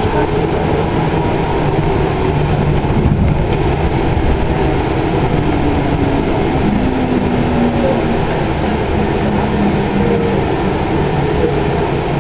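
Interior of a 2011 Kinki Sharyo light rail car moving along the line: a steady rumble of wheels on rail, with faint hum tones that drift a little in pitch.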